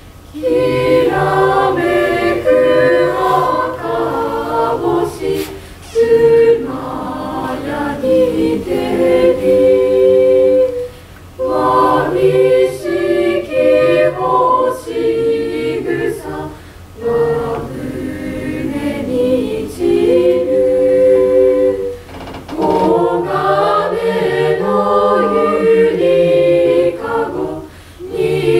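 Mixed choir of high-school students, boys and girls, singing. The phrases are made of held notes, with brief pauses between them every five or six seconds.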